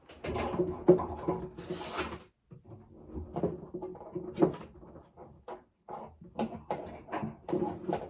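Handling and plugging in a laptop charger: irregular clicks, knocks and rustles of the plastic adapter and cable being fitted together, with a louder knock about a second in.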